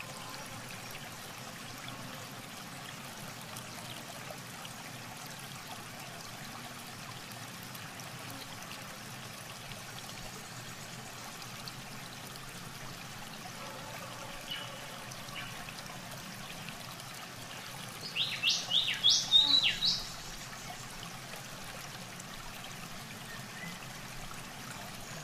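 Steady trickle of shallow water, with a quick run of high bird chirps for about two seconds near the 18-second mark.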